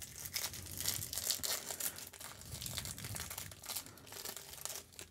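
Thin clear plastic wrapper of a card booster pack crinkling and tearing as it is peeled open by hand, a dense run of small crackles that dies away near the end.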